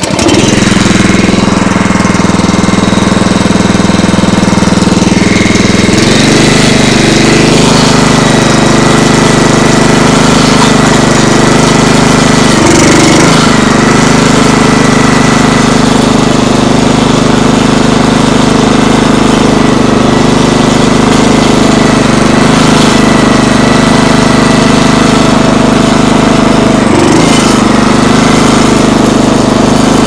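Small Honda engine on a sawmill's hydraulic power pack pull-started and catching at once, then running steadily as it drives the hydraulic pump. Its note changes about six seconds in and wavers briefly a few times later as the hydraulic control valves are worked.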